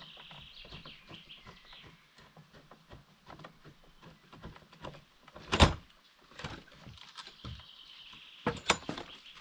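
Hand work with a screwdriver and hardware: irregular small clicks and knocks, with one louder knock about halfway through and two more close together near the end.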